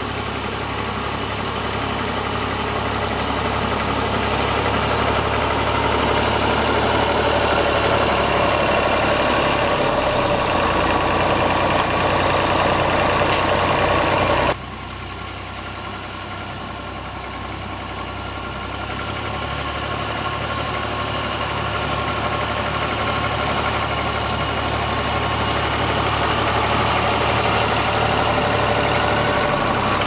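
Old Massey Ferguson tractor's engine running steadily while it pulls a reaper-binder through wheat, growing louder as it comes closer. About halfway through it cuts off abruptly to a quieter, more distant run, which then builds again as the tractor approaches.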